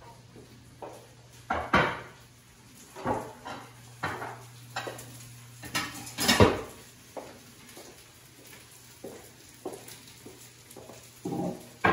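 Irregular hard knocks and clatters, a handful of them louder, over a steady low hum.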